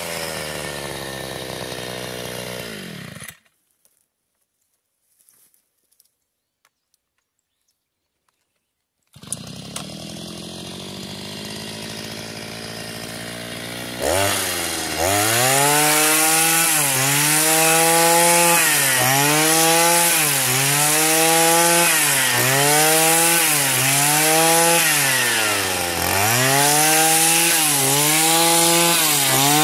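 Small two-stroke engine of a brushcutter-style multi-tool driving a reciprocating hedge-trimmer cutter bar. The engine slows and falls away, stops for several seconds, then idles, and from about halfway in is revved up and down over and over, about every second and a half, as the bar cuts through dry grass.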